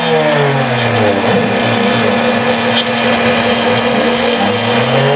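Hitachi router spindle on a homebuilt CNC machine running steadily while its quarter-inch end mill cuts the final profile pass through a wooden board. Over it, the stepper motors whine in sweeping pitches that fall and rise as the axes slow and speed up around the curved cut.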